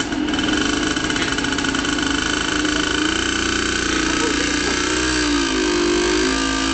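Motorcycle engine running steadily close by, its pitch shifting slightly about two-thirds of the way through.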